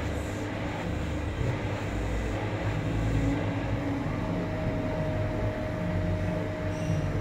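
Hand-held hair dryer running steadily, blowing air on hair being worked with a round brush. It has a constant hum, and a faint higher tone joins in a little past halfway.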